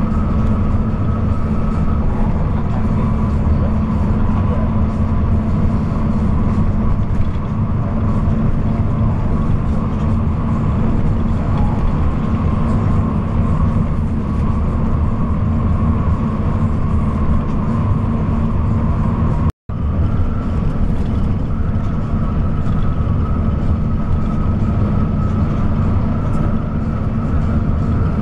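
Intercity bus running at highway speed: a steady engine drone and road noise. It cuts out for an instant about twenty seconds in.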